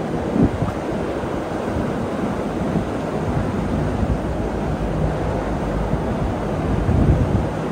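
Steady low rumble of a moving vehicle, engine and road noise with no distinct events.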